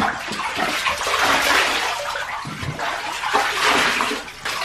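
Water poured from a cup over a puppy in a bathtub, splashing into the bathwater in two long pours.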